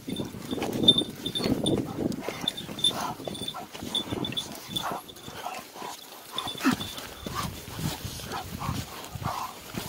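Footsteps crunching and scuffing on a stony dirt track, with dogs walking close by on the stones. A faint high ringing comes and goes.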